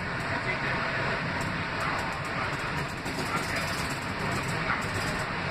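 An R160B subway car running at speed, heard from inside the car: steady rumble and rail noise of the train in motion.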